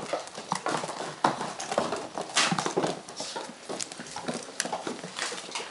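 A litter of Weimaraner puppies scampering and scrabbling on a hard smooth floor: a quick, irregular patter and clatter of many small paws and claws.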